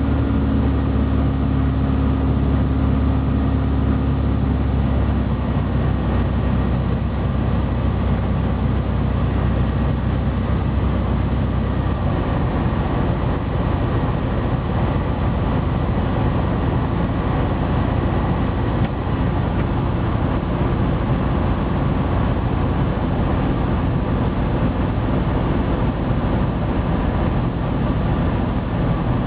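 Cockpit noise of an Evektor Eurostar light aircraft's Rotax 912 engine and propeller on landing approach: a steady drone with air rush. The low engine note changes about five seconds in and again about twelve seconds in, as power is adjusted on the approach.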